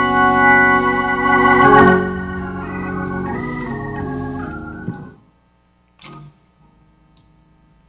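Organ music playing sustained chords, loud at first, softer after about two seconds and ending about five seconds in. Then near quiet, with a brief faint sound about a second later.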